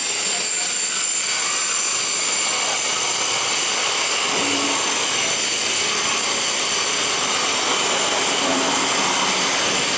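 Enclosed CNC aluminium drilling and milling machine running, its high-speed spindle giving a steady high whine over an even hiss.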